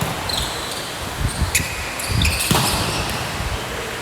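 Game play on an indoor court: a ball thumping on the floor a few times in the middle, with short high squeaks of shoes on the court floor.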